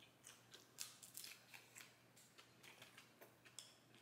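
Very faint, irregular crisp clicks and crackles from eating a crispy bone-in chicken wing: chewing and tearing the meat apart with the fingers.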